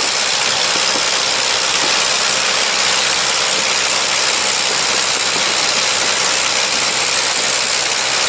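An engine running steadily under a loud, even rushing hiss.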